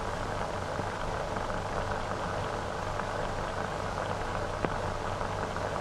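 Steady hiss and crackle of an old optical film soundtrack with a low hum, and one sharper click near the end.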